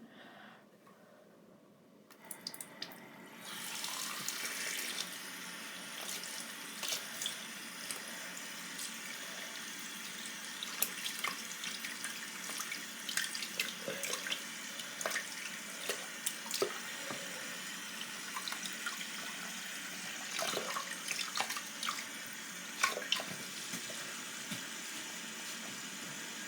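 Sink tap turned on a few seconds in and running steadily, with splashes and knocks as a doll's head is washed under the stream.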